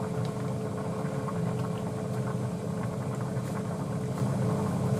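Steady mechanical hum of kitchen equipment, with a saucepan of broth simmering on an induction hob and a few faint soft ticks.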